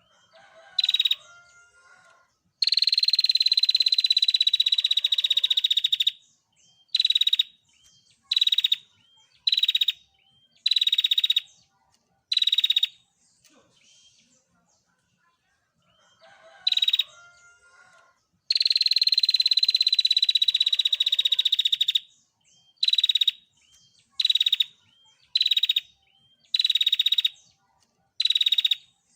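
Female prenjak (prinia) giving its rapid rattling trill: a long buzzy trill of about three and a half seconds, then a string of short trilled bursts about a second and a half apart. The whole phrase comes twice.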